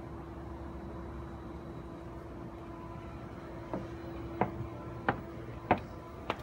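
Footsteps on concrete steps: five sharp steps at a walking pace, starting a little past halfway, over a steady low hum.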